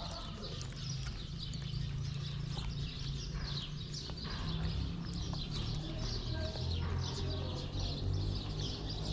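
Small birds chirping over and over, many quick high chirps, over a steady low rumble.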